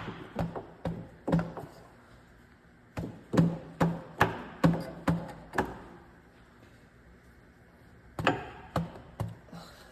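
Rubber-faced hammer striking the front differential cover of a 0B5 DSG transmission to seat the tight-fitting cover, in three runs of quick blows with pauses between.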